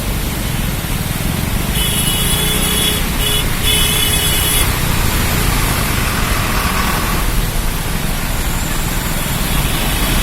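Road traffic running steadily, with a high-pitched tone sounding on and off for a few seconds about two seconds in.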